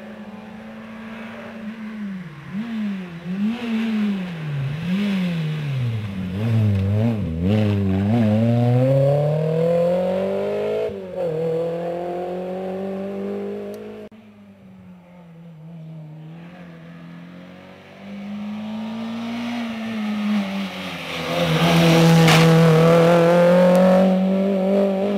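Rally hatchback's engine at full effort on a twisty stage: the revs rise and fall again and again through the bends, then climb in one long pull about eight seconds in. It fades for a few seconds, then comes back loud with the revs held high near the end, and a single sharp crack at the loudest point.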